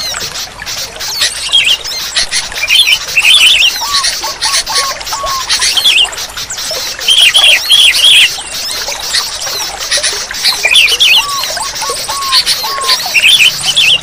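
Sooty-headed bulbuls (kutilang) calling: groups of short, arched, bubbly notes every few seconds, over a steady high chatter.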